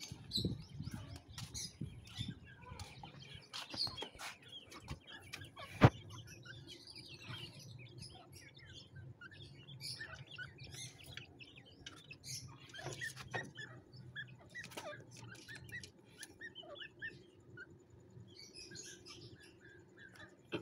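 Partridge (teetar) chicks chirping in many short, high calls, with the rattle and clicks of wire cages being handled. There is a single sharp knock about six seconds in.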